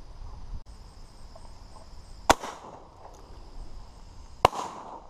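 Two shotgun shots about two seconds apart, each a sharp crack with a short echo trailing after it.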